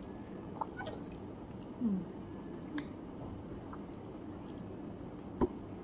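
Close-up eating of spaghetti: chewing and wet, squishy mouth sounds, with scattered faint clicks. A short low falling hum comes near two seconds in, and a single sharp click about five seconds in is the loudest moment.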